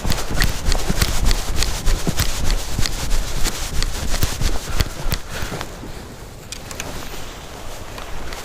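Hurried footsteps: a quick, irregular run of footfalls on hard ground, easing off about six seconds in and picking up again near the end.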